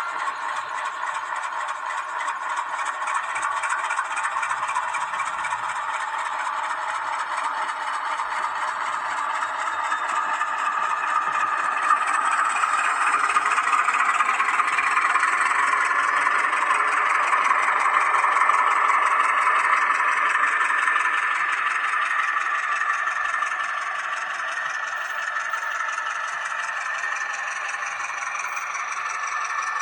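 H0 model train running along the track: a steady whirring motor and rattling wheels, growing louder about halfway through and easing again near the end.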